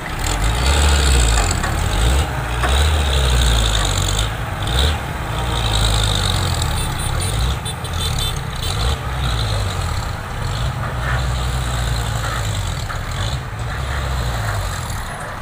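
Heavy diesel truck engine running under hard throttle with a deep, steady rumble as the loaded truck struggles to move on the slippery road.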